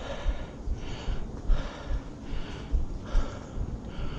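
A person breathing hard and fast, puffs swelling and fading about one and a half times a second, with short low knocks on the microphone.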